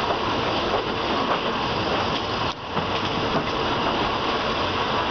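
Passenger train rolling out of a station, heard from an open carriage window: a steady rush of running noise from the moving coaches, dipping briefly about halfway.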